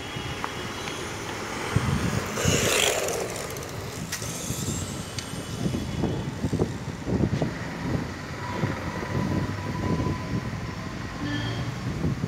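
Brushless-motored Tamiya Frog RC buggy (10.5T 3250 kV motor on 2S LiPo) driving on asphalt: a motor whine with tyre noise, surging loudest about two and a half seconds in as it passes close. Irregular low knocks follow through the second half.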